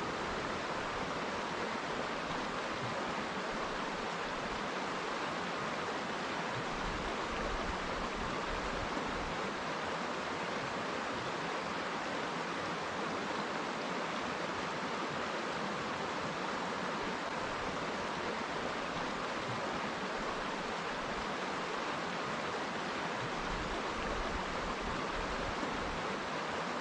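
River water flowing over rocks in a steady, unbroken rush, strongest in the middle of the pitch range.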